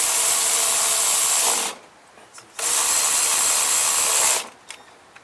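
Power tool running in two bursts of nearly two seconds each, driving fasteners during engine reassembly.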